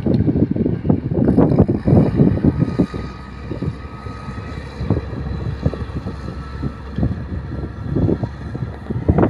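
Wind gusting against the microphone: an irregular, low buffeting rumble, heaviest in the first three seconds and again near the end.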